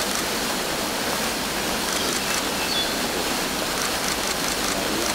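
Steady splashing hiss of water fountain jets, with a few faint clicks around the middle and near the end.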